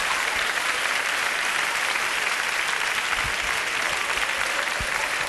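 Live audience applauding: dense, steady clapping.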